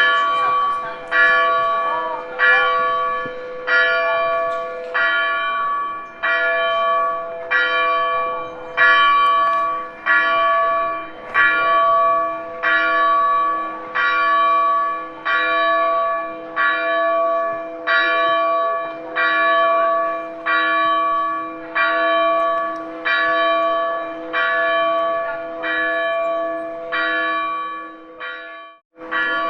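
A single church bell tolling steadily at about one stroke a second, each stroke ringing on into the next. Near the end the sound cuts out abruptly for a moment, then the tolling resumes.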